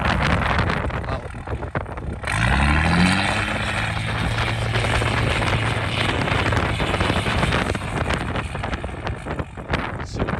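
Wind buffeting the microphone, then about two seconds in a straight-piped 5.9 Cummins diesel revs up, its pitch rising, and holds a steady drone for several seconds before fading under the wind.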